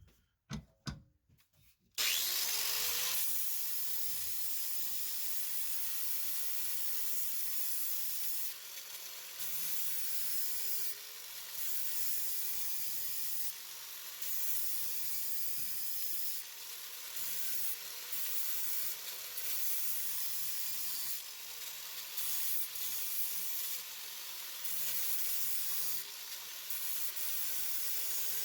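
Welding arc sizzling in a steady hiss that starts suddenly about two seconds in and runs on with brief dips every few seconds.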